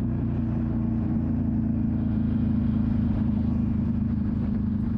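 Motorcycle engine running at a steady cruise, an even hum that neither rises nor falls, over a steady rush of wind and road noise.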